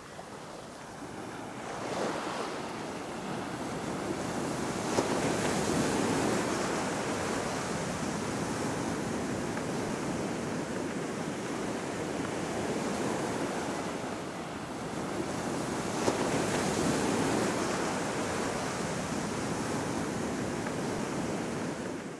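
Ocean surf: waves breaking and washing ashore, rising and falling in slow swells, loudest about five seconds in and again near seventeen seconds.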